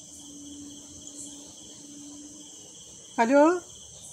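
Crickets chirping steadily in the background, a continuous high trill. About three seconds in a man says "hello" into a mobile phone.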